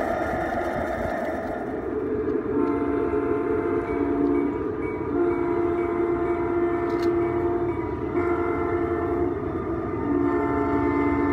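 Multi-tone train horn from a garden-scale model locomotive's sound system, blowing the grade-crossing signal: two long blasts, a short one and a long one, starting about two and a half seconds in.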